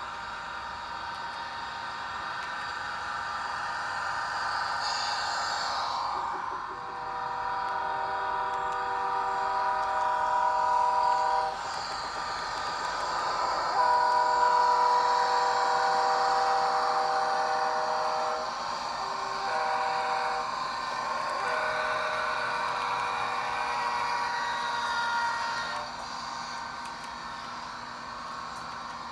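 Rapido HO-scale Budd RDC model's DCC sound decoder running its diesel engine sound, then sounding the air horn in the grade-crossing pattern: two long blasts, a short one and a final long one.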